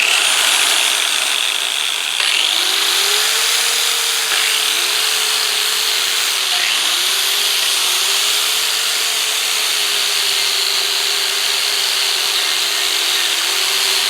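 A power-tool wire wheel scrubbing rust off cast-iron parts. Its motor whine dips in pitch and recovers several times as the wheel is pressed into the metal, over a steady harsh hiss.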